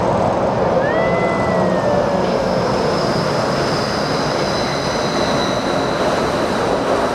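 Disneyland monorail train passing close by: a loud, steady rumble with high, steady motor whines over it.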